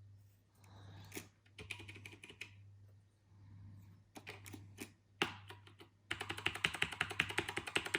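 Typing on an Apple Adjustable Keyboard: scattered key presses at first, then from about six seconds in a fast, even run of key clicks. The keyboard is filthy, and some of its keys stick.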